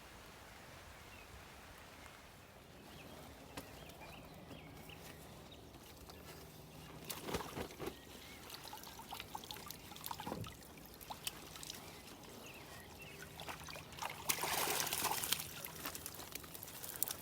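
Water pouring and splashing in a few short bursts, the longest about fourteen seconds in, over a faint steady low hum.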